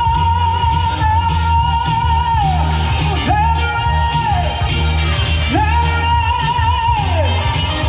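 A female singer on a microphone holds three long, high notes over a recorded Italian pop backing track with a steady bass line. The first note is already sounding at the start, and the next two swoop up into place; each one slides down at its end.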